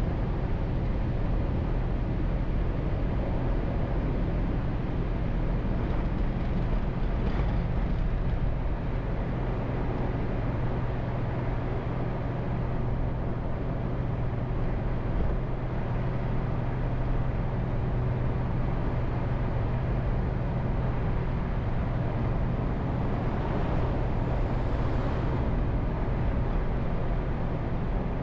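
Car driving at a steady speed: an even drone of engine and tyre noise with a constant low hum, and a brief swell of hissing near the end.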